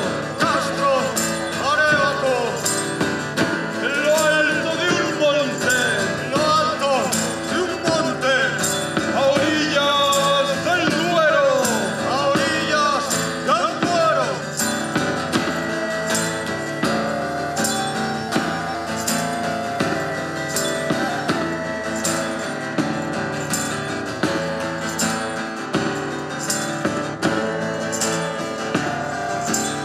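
Live band music: a voice sings over guitar for roughly the first half, then the singing stops and the guitar carries on with evenly spaced light percussion hits.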